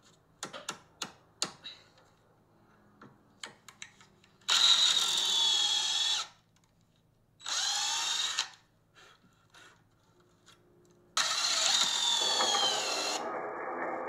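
Power drill boring into plywood with a twist bit, the motor whining in three short runs with pauses between them, the last one the longest. A few light clicks and knocks come before the first run.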